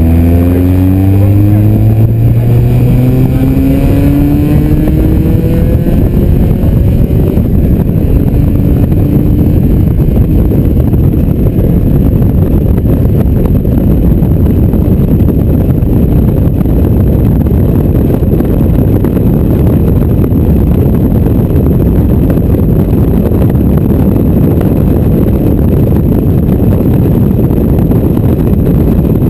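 Mazda MX-5's four-cylinder engine pulling hard, its pitch rising steadily through the first several seconds. Then heavy wind buffeting on the open-top car at speed drowns out the engine for the rest.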